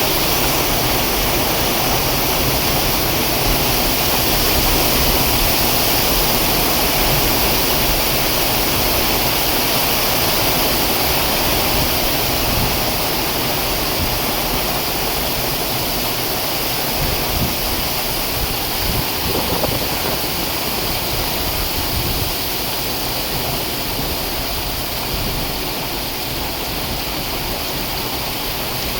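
Heavy rain falling steadily in a thunderstorm: a loud, even hiss, easing slightly about halfway through.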